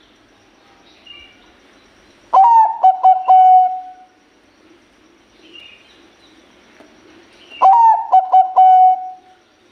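Zebra dove (perkutut bangkok, a Thai-bred song line) cooing: two loud phrases about five seconds apart, each a few quick clipped notes ending in a long held coo.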